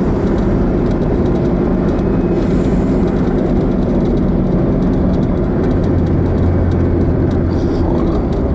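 Toyota 4x4 driving at speed, its engine and tyre noise heard from inside the cab as a steady drone. A deeper low hum joins about six seconds in.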